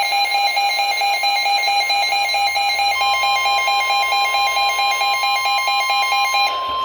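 A weather alert radio's electronic alarm beeping in a fast warbling pattern. About three seconds in it is joined by a steady single-pitch warning alarm tone (NOAA Weather Radio's 1050 Hz tone), which holds after the beeping stops near the end. It signals an incoming severe thunderstorm warning.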